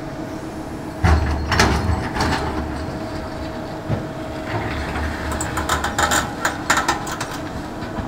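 Tracked hydraulic excavator digging in a rocky pit: its engine runs steadily while the bucket clunks and scrapes against stones and soil, loudest about a second in and again in a cluster of knocks around six to seven seconds in.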